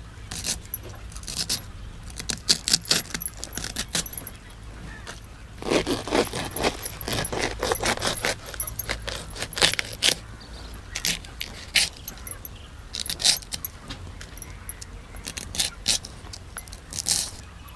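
Raw cabbage being sliced by hand against a fixed upright cutting blade: crisp crunching cuts that come in quick runs with short pauses between them.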